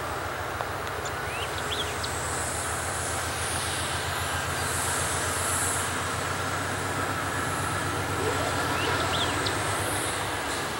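Diesel freight locomotives working upgrade, a steady low throbbing engine rumble that grows a little louder, with a high hiss above it and a couple of short high chirps.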